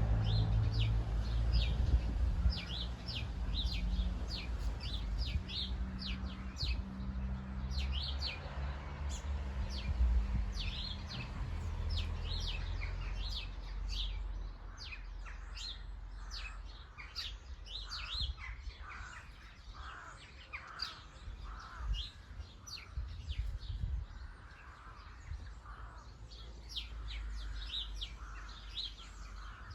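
Garden birds chirping, a steady stream of short, high chirps with some lower calls joining in the second half. A low hum underneath fades out about halfway through.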